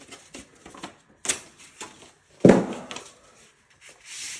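Drywall tools and tape being handled: scattered clicks and light knocks, a louder knock about halfway, and a short papery rustle near the end.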